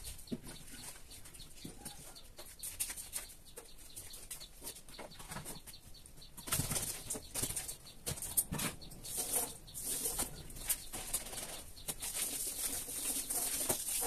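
Washing up at a stainless steel sink: a cloth scrubbing and wiping the metal basin, with small knocks and rustles. From about six and a half seconds in it gets louder and busier, with water splashing at the tap.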